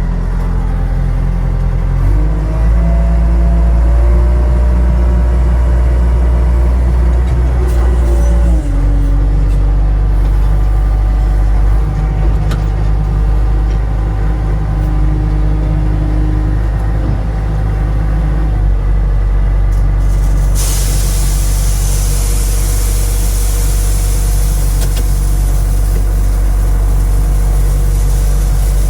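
Heavy diesel engine of a payloader running steadily. It revs up about two seconds in and drops back near nine seconds. A steady hiss joins about twenty seconds in.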